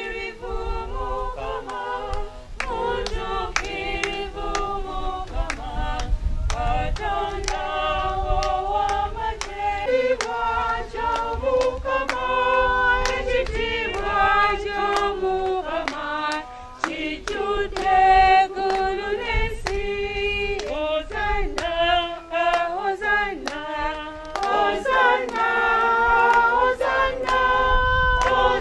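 A congregation singing together, with steady hand-clapping in time.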